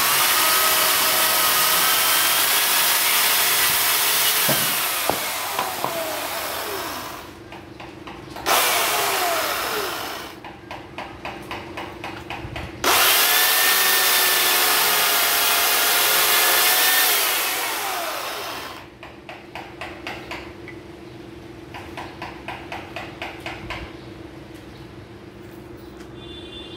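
Makita corded electric chainsaw cutting into a wood block at full speed, its motor whine falling in pitch each time the trigger is released. It runs up again twice, about eight and thirteen seconds in, and winds down each time. A light rhythmic ticking fills the quieter stretches between runs.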